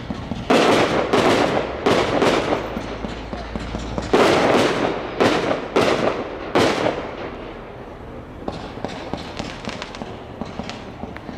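Aerial firework shells bursting: a rapid series of about nine loud booms with echoing tails in the first seven seconds, then lighter crackling and pops.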